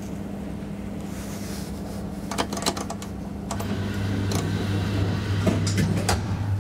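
Traction elevator heard from inside the car: a quick run of clicks a couple of seconds in, then a steady lower motor hum sets in about halfway through as the car starts moving, with a few more clicks near the end.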